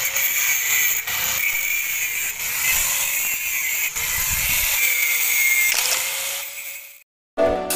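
Angle grinder cutting through old steel round bars in a concrete gate post: a steady high-pitched whine with grinding noise that fades out about six and a half seconds in. Music starts just before the end.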